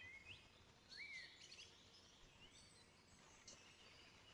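Near silence, with faint bird chirps in the background: a few short rising calls.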